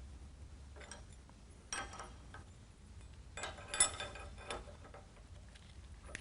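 Light metallic clinks and clicks, about six scattered through, the loudest a little before four seconds in: hand tools and hydraulic fittings being handled and tightened on a planter row unit.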